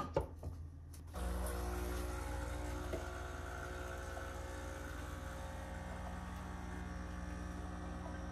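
A few knocks and clicks as the phone camera is handled and set in place, then a steady low hum with several held tones that starts suddenly about a second in and runs on evenly.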